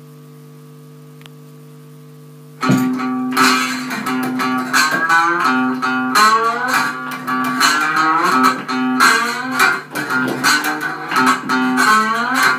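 A steady electrical hum, then about two and a half seconds in a homemade guitar built from a cupboard, sticky tape and a stick starts playing a loud, improvised riff with bent and sliding notes.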